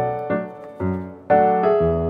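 Background piano music. The notes die away to a lull partway through, then a new chord comes in.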